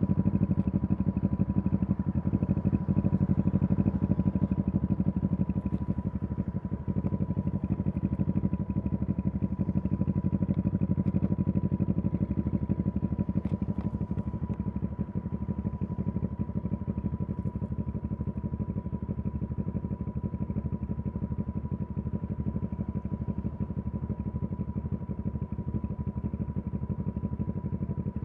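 2023 CFMoto 650NK's parallel-twin engine running steadily on the move, holding a fairly even speed, with a thin steady high whine above the engine note.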